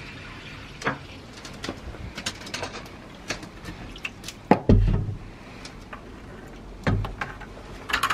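A string of light knocks and clicks from handling things around the bucket, with two heavier, deeper thumps about halfway through and again near the end.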